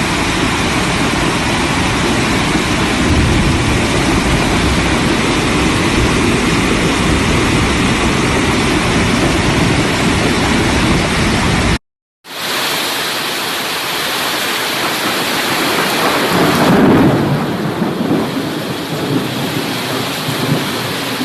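Heavy rain pouring down steadily, with low rumbles of thunder. The sound cuts out for a moment about 12 seconds in and resumes as a different recording of rain, with rumbling swells in its second half.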